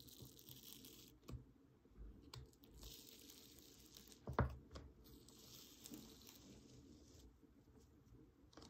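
Thin plastic film seal being peeled up off a tub of sticky slime: faint crinkling and peeling rustle in several stretches, with a few small clicks and one sharper pop about four seconds in.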